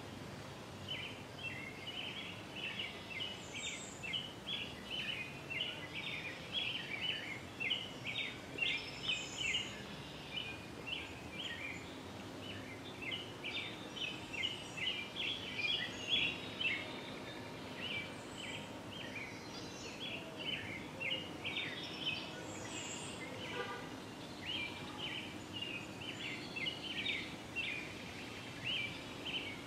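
Small birds twittering outdoors in quick runs of chirps, with a few higher single calls now and then.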